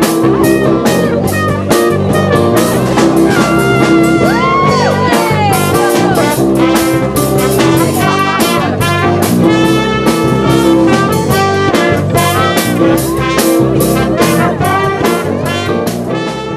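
Small jazz band of saxophone, trumpets and drum kit playing an upbeat tune with a steady drum beat; the music fades out near the end.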